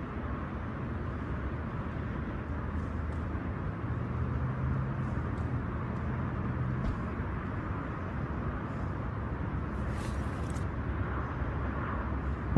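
Steady low rumbling background noise, with a few faint clicks and a brief high hiss about ten seconds in.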